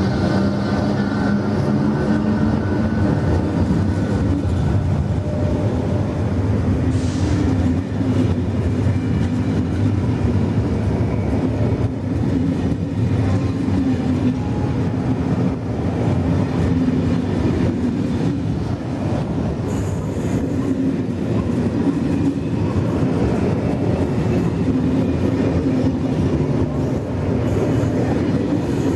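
Corail passenger coaches of a train hauled by SNCF BB 26000-class electric locomotive BB 26037 rolling past on the rails, a continuous wheel-and-rail rumble. A faint high-pitched streak comes about seven seconds in, and a thin high sound runs from about twenty seconds in.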